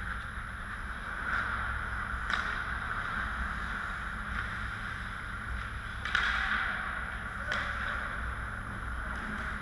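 Ice hockey play in a rink: skate blades scraping and carving the ice over a steady low hum, with a few sharp clacks of sticks and puck, the loudest about six seconds in, followed by a brief scraping swell.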